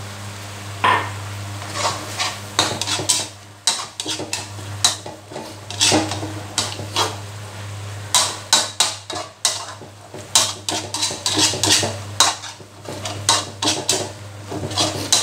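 Slotted metal spatula scraping and clacking against a wok as a thin sauce of chili, garlic and holy basil is stirred, the strokes coming faster in the second half. A steady low hum runs underneath.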